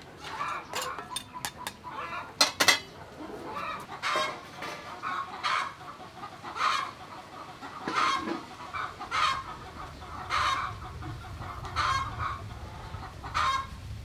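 Chicken clucking, a short call about every second and a quarter. Near the start, a few sharp metal clinks of a ladle against a wok.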